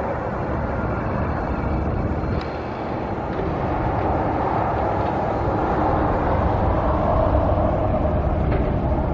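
Steady rumble of vehicle and road noise with no distinct events, swelling a little through the middle.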